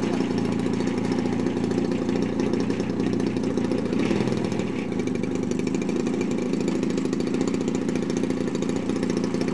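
Petrol engine of a 30% scale Extra 260 RC aerobatic plane running steadily at low throttle while it taxis, the propeller turning.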